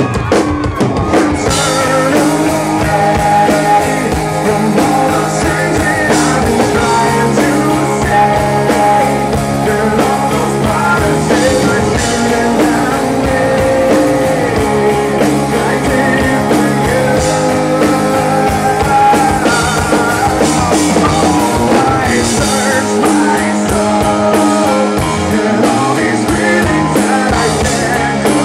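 Live rock band playing: electric guitars, bass and drum kit, with a male lead voice singing over them.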